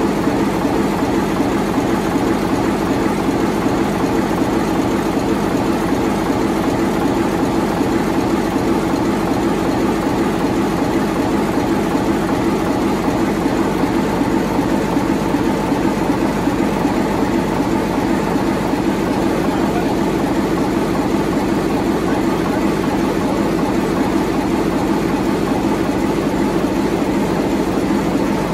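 Large twin-turbo diesel engine running steadily, an even pulsing drone with no change in speed.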